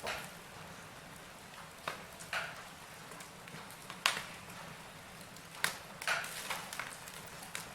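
Wood fire in a fireplace crackling: irregular sharp pops and snaps over a soft steady hiss, the loudest snap about four seconds in.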